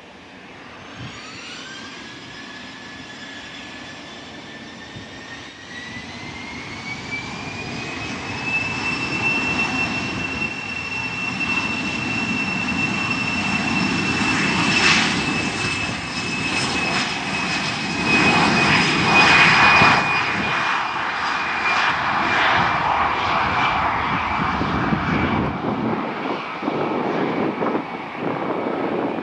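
Cessna 750 Citation X+ business jet's twin Rolls-Royce AE3007 turbofans spooling up to takeoff power on the takeoff roll: a whine rises in pitch over the first several seconds and then holds high, over a rumble that grows louder as the jet races past. The rumble is loudest about two-thirds of the way through, then eases slightly as the jet moves away.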